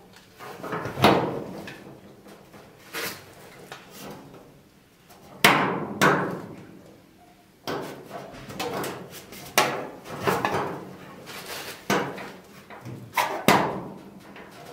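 Irregular metallic knocks and clanks of a hand tool working against sheet metal at a car's rear wheel arch: about nine or ten sharp hits, each ringing briefly.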